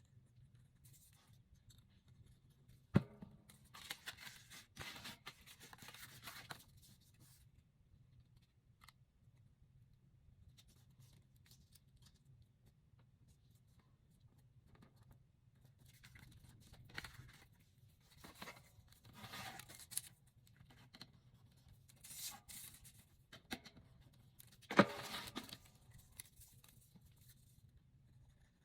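Paper and cardstock being handled and cut: bursts of rustling and cutting sounds, with a sharp tap about three seconds in and another near the end.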